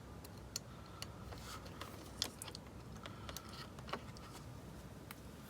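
Faint, irregular small clicks and taps of a wire being worked into the spring terminals of a 1980s Radio Shack spring-clip electronics kit, the sharpest about two seconds in.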